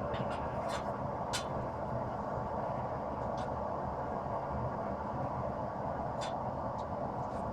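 Steady mechanical running noise, like shop equipment, with a few light clicks and ticks over it.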